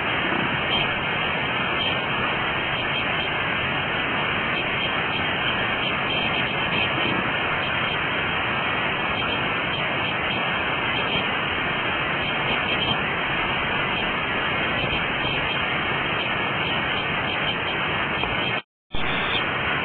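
Steady rush of river water, an even hiss that cuts out for a split second near the end.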